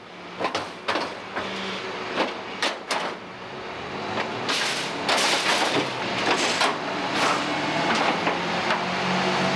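Garbage truck's bin lifter handling a large wheeled metal waste container: knocks and clanks as the bin is hooked on, then, from about four seconds in, a louder steady clattering noise as the lifter raises and tips the bin over the hopper.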